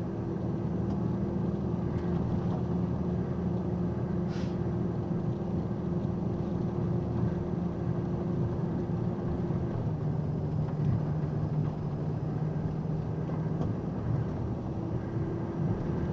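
Box truck engine and road noise heard from inside the cab, a steady drone whose pitch drops about ten seconds in and rises again near the end. A single short click sounds about four seconds in.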